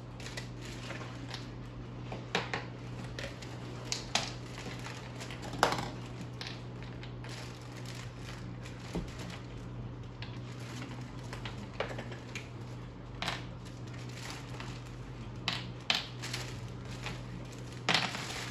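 Clear plastic packaging bags crinkling and hard plastic parts clacking as toy-quad components are unpacked and set down, with scattered knocks over a steady low hum.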